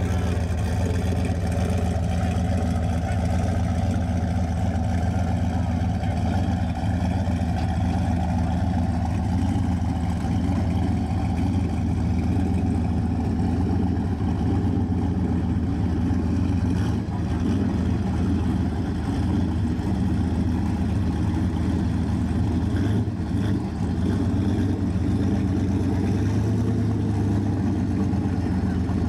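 Turbocharged drag-race car engines idling steadily at the start line, a loud deep running note with no revving sweeps.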